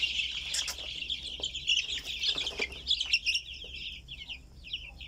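A flock of young chicks peeping without pause: a dense chorus of many short, high, falling peeps overlapping one another.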